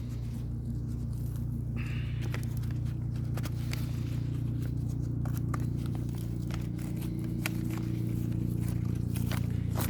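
Scattered light clicks and scrapes from a cut-open oil filter being pulled apart and inspected, over a steady low hum.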